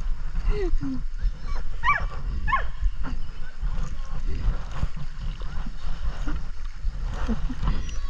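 Siberian husky whining in several short, high, gliding whimpers during the first three seconds, over a steady low rumble.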